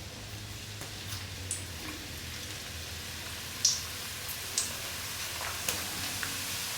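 Hot oil frying, a soft sizzle that grows louder, with a few sharp pops and ticks in the second half.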